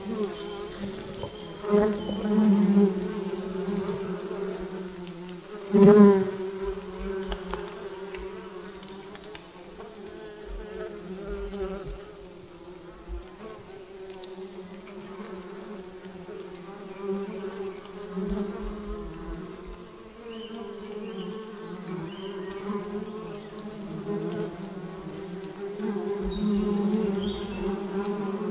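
Bees buzzing in a steady drone, as from many bees together, with louder buzzes swelling up about two and six seconds in as single bees pass close.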